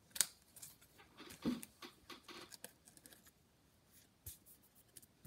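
Trading cards handled by hand: a scattering of light rustles and taps of card stock, the sharpest just after the start and about a second and a half in.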